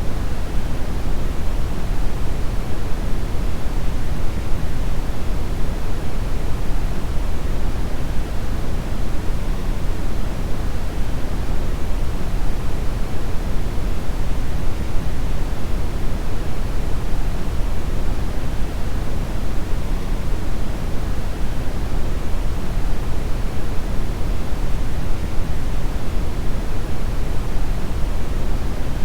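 Steady synthetic brown noise: an even, unchanging hiss weighted toward the low end, like a deep rumbling hush.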